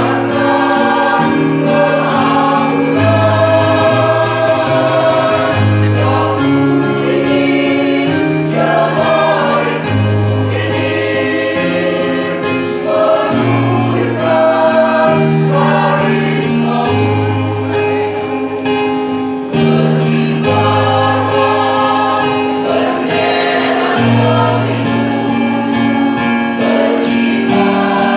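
Mixed choir singing in parts, with long held chords that change every second or so under a steady lower voice line.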